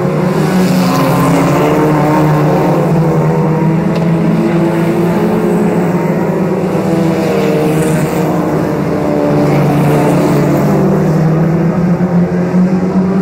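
Several 1600-class autocross cars race round a dirt oval, their engines blending into a loud, steady drone. The pitch wavers up and down as the drivers accelerate and back off through the bend.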